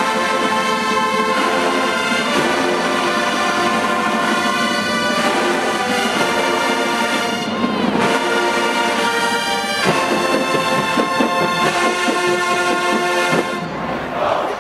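HBCU show-style marching band's brass section playing loud, full sustained chords, the music cutting off near the end.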